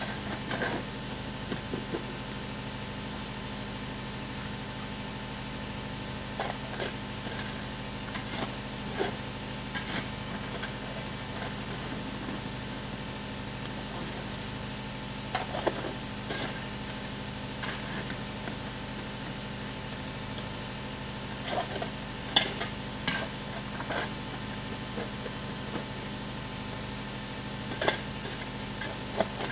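Metal shovel scraping and striking sandy, gravelly ground at irregular intervals, the sharpest strike about three quarters of the way through, over a steady low mechanical hum.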